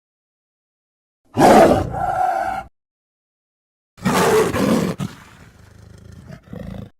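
Werespider creature sound effect: two separate monster roars with dead silence between them. The first starts hard and settles into a held, pitched snarl. The second is shorter and trails off into a quieter, crackling rasp that swells briefly just before it stops.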